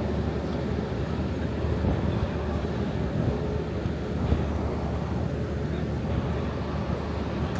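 Steady low outdoor rumble of an airfield apron, with faint voices of people nearby.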